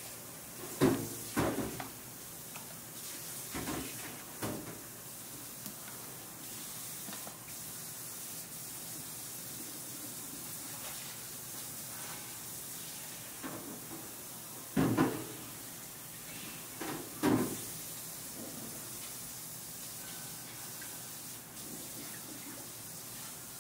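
Dull knocks of a large stainless-steel mixing bowl being handled as thick castella batter is poured from it into a paper-lined baking tray, over a steady kitchen hiss. There are two knocks near the start, two more a few seconds later, and the two loudest past the middle.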